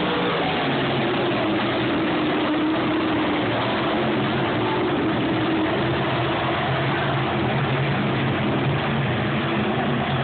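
A pack of dirt-track race cars circling together, their engines blending into a steady loud drone with no sharp revving.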